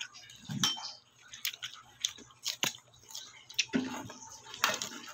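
Close-up eating sounds: irregular sharp clicks and light clinks, as of a utensil against a dish, mixed with chewing.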